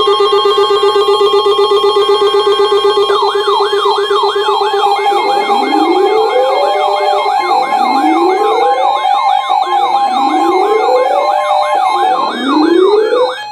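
Electronic warning alarms for a severe thunderstorm warning: a steady alert tone sounds throughout. A fast yelping siren joins about three seconds in, at roughly three sweeps a second. From about five seconds in, a lower wail also rises four times, about every two and a half seconds.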